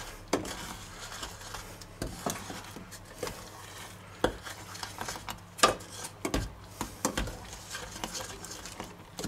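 Wooden spoon stirring a thick butter, honey and sugar mixture in a small stainless-steel saucepan, with irregular scrapes and knocks of the spoon against the pot.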